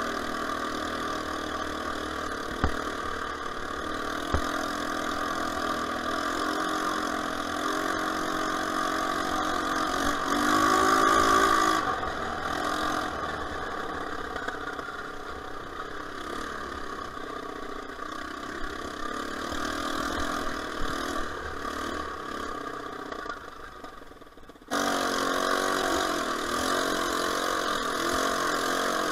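ATV engine running under way, its pitch rising and falling with the throttle and revving up about ten seconds in. There are two short knocks in the first few seconds, and near the end the sound jumps abruptly to a louder run.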